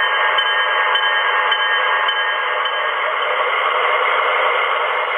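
Steady, hissy diesel engine sound played through the small onboard speakers of MTH Proto-2 O-scale Alco C-628 model locomotives as they run on the track.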